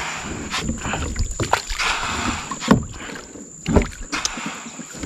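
Double-bladed kayak paddle dipping into the river in sharp strokes about a second apart, with water rushing and splashing between them.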